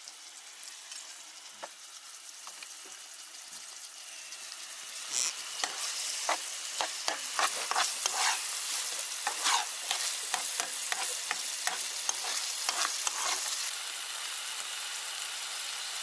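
Chopped onion sizzling in oil in a frying pan over a portable gas camping stove. It starts as a faint hiss, then from about five seconds in crackles and spits loudly, and settles to a steadier sizzle near the end.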